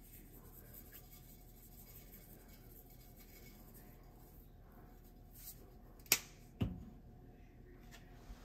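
Faint room tone broken by two sharp knocks a little past the middle, about half a second apart, the second duller and lower.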